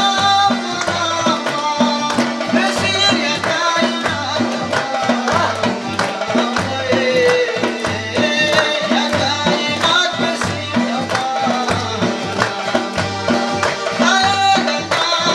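Live Khowar folk music: a double-headed barrel drum (dhol) keeps a steady, even beat under the melody of a Chitrali sitar and an electronic keyboard.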